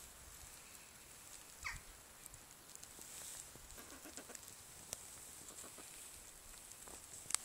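Backyard hens calling quietly: one short, high, falling squeak nearly two seconds in, then soft low clucking around four seconds in. A few faint clicks come between.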